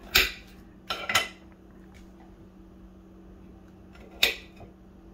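Kitchen knife clacking on a cutting board as potato is cut: a sharp knock near the start, a quick double around a second in, and another about four seconds in, over a faint steady hum.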